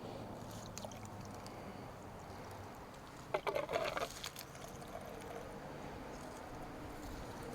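Diesel fuel trickling from a siphon hose into a new fuel filter as it is topped up, with a short cluster of clicks and splashy knocks about three and a half seconds in.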